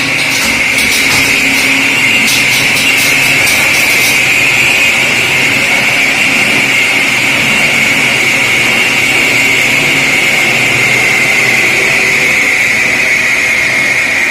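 Electric diamond-blade concrete saw running with a steady high-pitched whine over a gritty noise, its pitch sagging slightly near the end.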